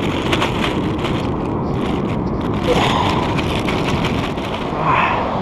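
Steady rush of surf and wind on the GoPro microphone, with dense crackling and scraping from handling or rubbing on the camera.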